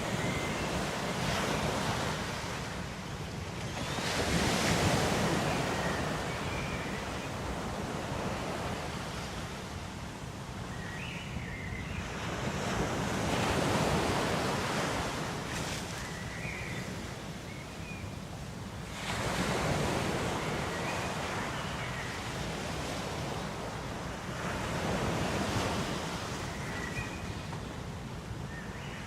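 Ocean waves washing in on a shore, swelling and falling back every six to nine seconds, with a few brief faint high chirps in between.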